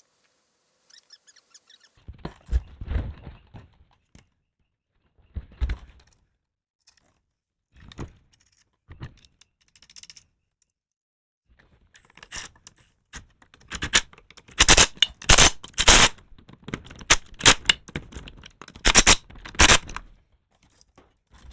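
A series of knocks and clunks from work on a golf cart's front wheel: a few scattered thuds at first, then a dense run of loud, sharp clanks about halfway through.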